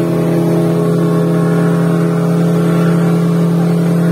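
Outboard motor running steadily at speed, a constant engine drone, with water rushing and spraying along the boat's hull.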